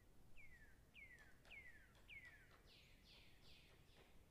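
Faint squeaking of a steel wool scrubber rubbed over a mutton trotter, each stroke giving a short squeak that falls in pitch, about every half second. In the second half the strokes turn into a rougher, scratchier rasp.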